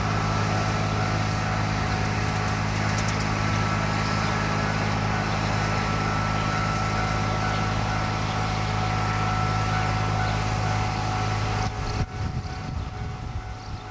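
A steady, low, engine-like hum that cuts off about twelve seconds in and gives way to an uneven rushing noise.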